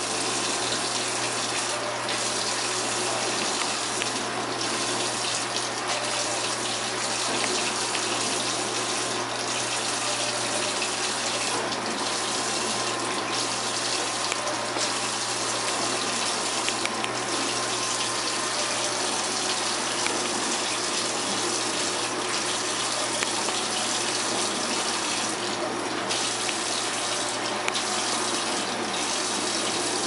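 Kitchen tap running a steady stream into the sink, with an African grey parrot bathing in the water; the hiss dips briefly every few seconds.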